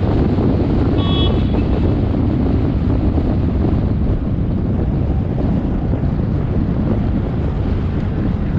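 Wind buffeting the microphone over the steady rumble of a moving CNG auto rickshaw, with a short high-pitched beep about a second in.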